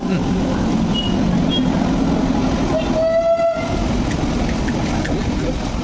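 An Indian Railways train horn sounds one short blast about three seconds in, over the steady low rumble of a train on the tracks.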